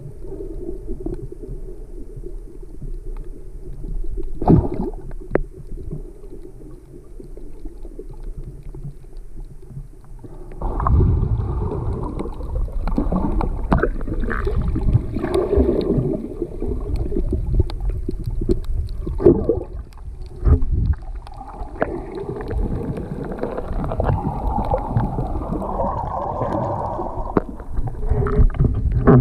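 Muffled underwater noise picked up by a camera in a waterproof housing: a steady low rumble with a few sharp clicks. About ten seconds in it becomes louder and busier, with many scattered knocks and clicks.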